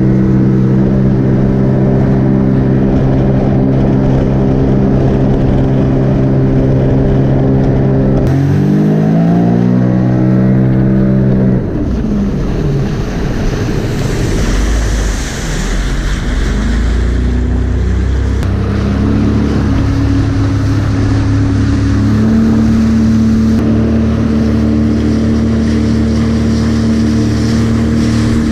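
Jet ski engine running at a steady pitch, then revving up and down about eight seconds in. A rush of water and spray takes over for several seconds before the engine settles again to a steady, slightly higher pitch.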